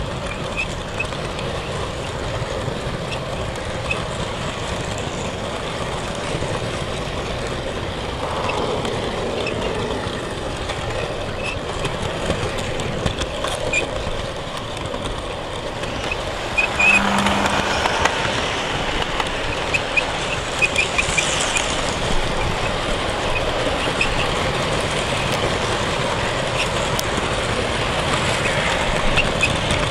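Model diesel train running along its track: a steady whirring rumble with scattered light clicks from the wheels and rail joints. A little past halfway it briefly gets louder, with a short low tone.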